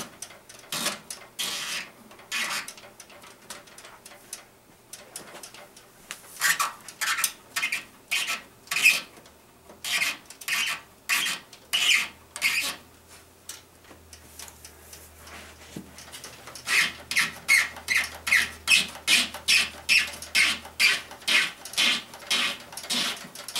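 Hands working flexible water-cooling tubing onto a fitting and twisting the compression fitting tight, a series of short scraping rubs. They come now and then at first and quicken to about three a second over the last several seconds.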